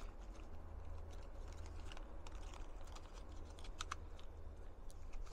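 Small irregular clicks and rustles as a box of RWS Biathlon .22 rimfire ammunition is opened and handled, the cartridges clicking against one another, over a low steady rumble.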